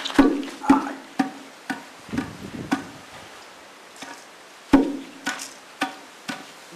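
Sharp, hollow knocks of wood, about two a second, each ringing briefly with a low resonant tone, with a pause of about a second near the middle.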